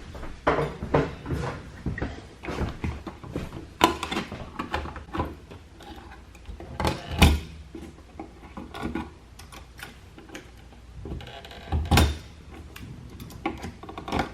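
Irregular clicks, knocks and light scraping of hand tools and electrical wire being handled while the wire's insulation is stripped, with sharper knocks about 4, 7 and 12 seconds in.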